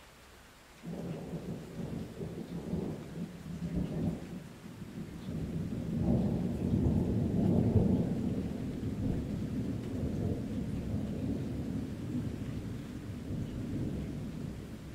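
A deep thunder rumble that breaks in suddenly about a second in, swells to its loudest a few seconds later, then rolls on and slowly fades.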